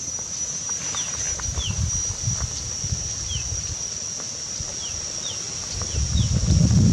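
Outdoor ambience: a steady high insect drone with a bird's short falling chirps repeating every half second or so, over an uneven low bubbling and crackle from a pan boiling hard on a wood fire, swelling near the end.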